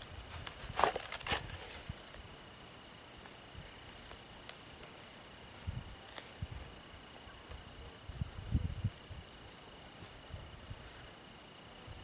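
Insects trilling outdoors: a thin, steady high trill with a faster pulsing trill above it. A few soft low thumps and knocks, about a second in, around six seconds and again near eight and a half seconds.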